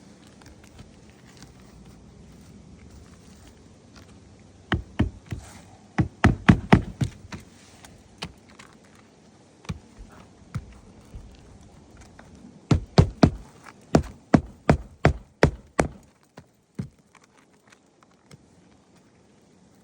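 Two bursts of sharp knocks, several a second, each lasting about three seconds, with a few single knocks between them.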